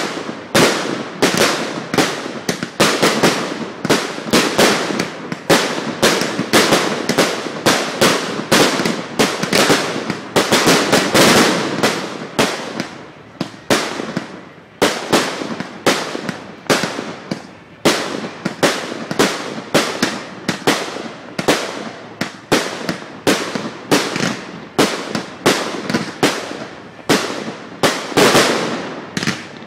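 Aerial fireworks shells bursting overhead in a rapid, near-continuous barrage, loud and close from the fallout zone: sharp bangs about two or three a second with crackling in between.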